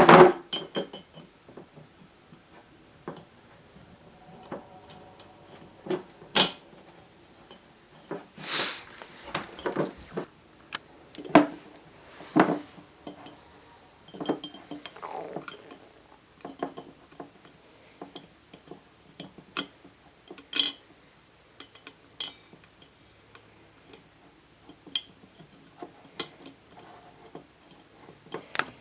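Plastic Rubik's Cube pieces clicking and clinking against a glass jar in scattered, irregular knocks, a few of them ringing briefly.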